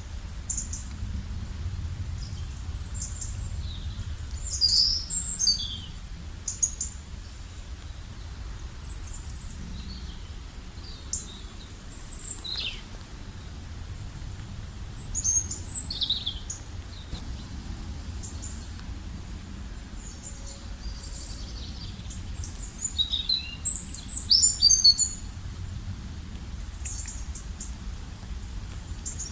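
Several birds calling in a rainforest, with short high chirps and quick falling trills at irregular intervals. The busiest flurries come about five seconds in, around the middle and a few seconds before the end. A steady low rumble runs underneath.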